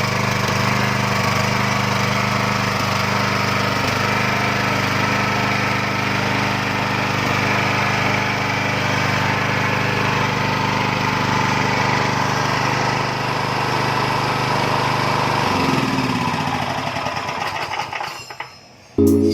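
Motoyama 9 HP single-cylinder gasoline engine running steadily, then shut off about fifteen seconds in, its speed falling away until it stops.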